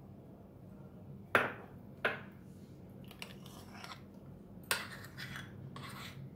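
A spoon clinking against a glass and a bowl as whipped coffee is spooned onto iced milk: sharp clinks about a second in, at two seconds and near five seconds, with a few lighter taps between.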